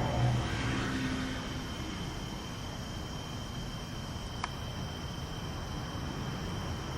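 A low droning tone with overtones, the unexplained night-time noise, fades out in the first second or two. Then a steady hiss with a faint high whine, broken by one sharp click.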